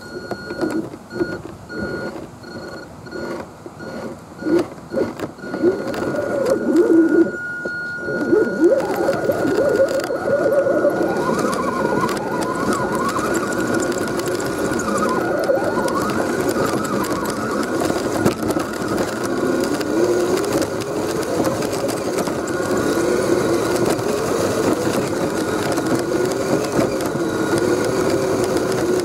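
Electric motor and gear drivetrain of an Axial SCX10 RC crawler truck whining. For the first several seconds it comes in short throttle blips about twice a second; after that it runs continuously, its pitch rising and falling with the throttle, over a thin steady high whine.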